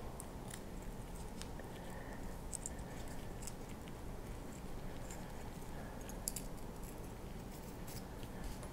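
Quiet steady room hum with faint, scattered small clicks and rustles; one slightly sharper click about six seconds in.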